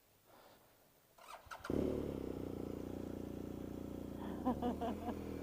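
Motorcycle engine starting: a few quick clicks, then the engine catches about a second and a half in and settles into a steady idle.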